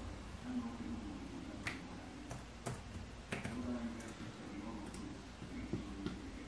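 Scattered, irregular clicks from an Apple Magic Mouse and an Apple keyboard being used at a computer, over a low steady room hum.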